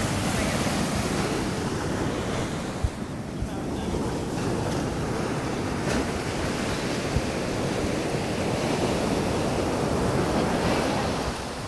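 Ocean surf breaking on the beach, a steady rush, with wind buffeting the microphone.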